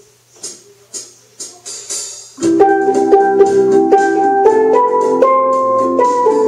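Four short clicks half a second apart, each louder than the last, count in. About two and a half seconds in, a pair of steel pans starts playing a melody of ringing pitched notes, with steady low notes sounding underneath.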